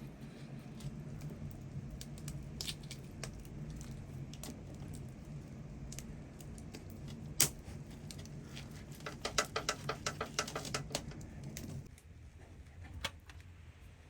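Metal cookware and utensils clinking: scattered sharp clicks, one loud clink about halfway, and a quick run of rattling clinks a little after, over a low steady hum that stops about twelve seconds in.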